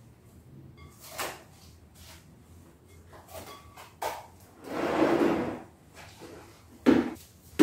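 Plastic cling film being pulled off its roll and stretched around a glass bowl: short crinkles and rustles, with a longer peeling sound about five seconds in as film comes off the roll, and a sharp knock near the end.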